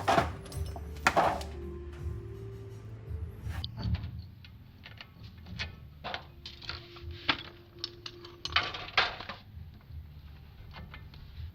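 Irregular clinks and knocks of tools and metal parts being handled, over a low steady hum.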